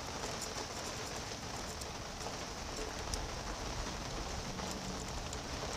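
Steady hiss of background noise with faint, scattered light ticks as a small steel pick scrapes dirt out of a screw-head slot.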